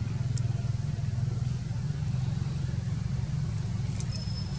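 Steady low rumble, with a few faint clicks and a brief thin high chirp near the end.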